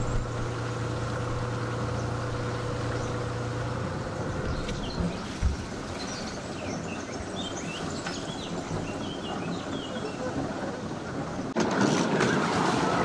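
A boat engine running steadily for the first few seconds, then birds chirping over faint background noise, with a single knock in between. Near the end the sound cuts to a louder rush of engine and wind noise.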